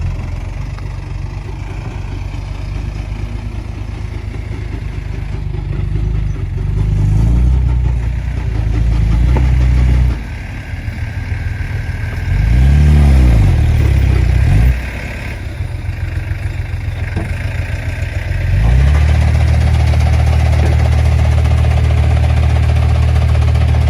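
Tractor engine working with its revs changing: it drops back twice, rises and falls briefly in the middle, and holds steady at higher revs over the last five seconds.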